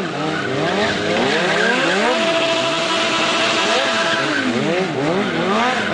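Sport bike engine revving up and down over and over, held high for about two seconds in the middle, as the rear tire spins and squeals in a smoking burnout circle.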